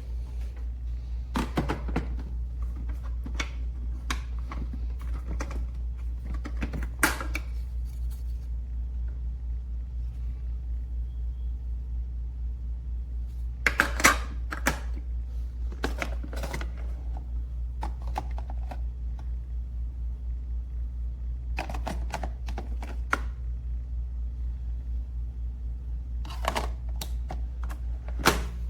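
Light clicks and knocks in short clusters, from the coffee maker's plastic parts being handled, over a steady low hum.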